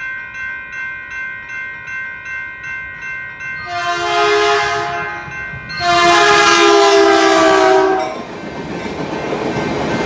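Railroad crossing bell ringing steadily, about two strokes a second. A Caltrain locomotive's horn then sounds two blasts, the second longer and the loudest thing heard. The rumble of the passing double-deck commuter train rises near the end.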